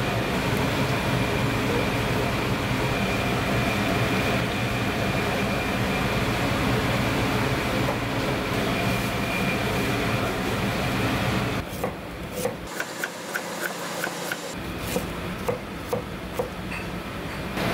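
A steady mechanical kitchen hum with a faint high tone runs for the first twelve seconds or so. Then it gives way to a knife slicing fresh ginger on a cutting board: about ten crisp knocks, roughly two a second.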